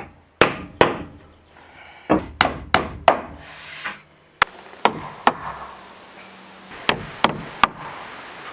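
A tool striking wood in sharp single blows, about ten in all, several coming in quick runs of three.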